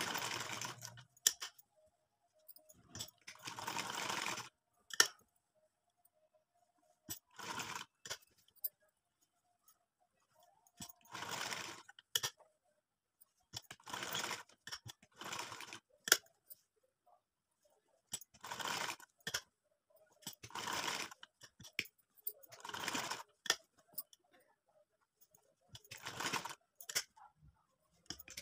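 Domestic sewing machine stitching in short runs of one to two seconds, stopping and starting again every two to three seconds as the fabric is turned around the curves of a scalloped edge. A few sharp clicks fall between the runs.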